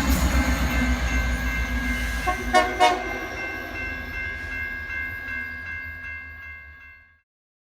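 A train rumbling past and fading away, with several steady high tones held over the rumble and a few short metallic clanks about two and a half seconds in. The sound cuts off about seven seconds in.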